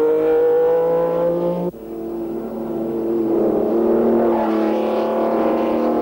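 Racing sports-car engines at high revs. The first note climbs slightly and cuts off abruptly a little under two seconds in. A second engine then swells up and holds a steady high note.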